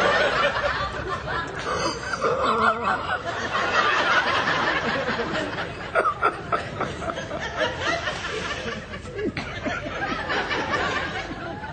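Stifled, breathy snickering laughter that goes on without a break.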